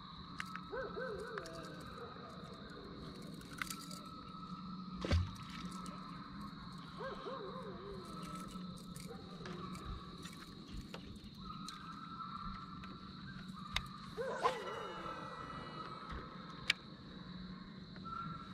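Steady electric hum and whine of a bow-mounted trolling motor, the whine dropping out for a couple of seconds about ten seconds in and then coming back. A few sharp clicks and knocks of tackle being handled on the boat deck, the loudest about five seconds in.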